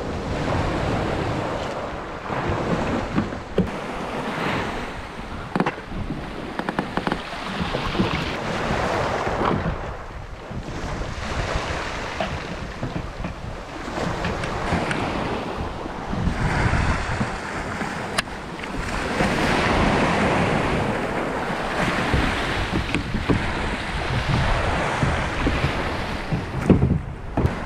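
Small sea waves washing onto a shingle beach, swelling and drawing back every few seconds, with wind buffeting the microphone. A few sharp clicks now and then.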